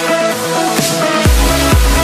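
Electronic dance music: the bass and kick drum drop out, then come back in a little over a second in with a steady kick drum beat.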